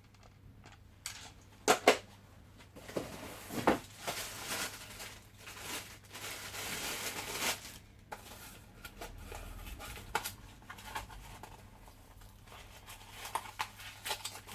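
Packaging being handled as parts are unpacked: rustling and crinkling for a few seconds in the middle, with two sharp knocks near the start and scattered small clicks.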